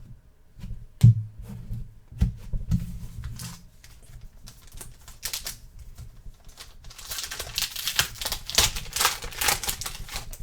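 Trading cards being handled by hand: a couple of sharp knocks in the first few seconds, then a quick run of crisp clicking and flicking from about seven seconds in as the cards are slid through one after another.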